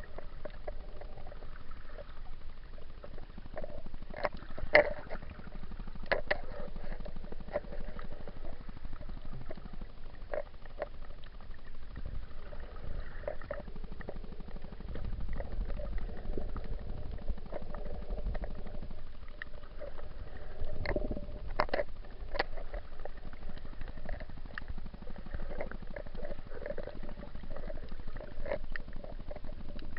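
Water sloshing and gurgling, heard muffled through an action camera's waterproof housing, with scattered clicks and knocks throughout.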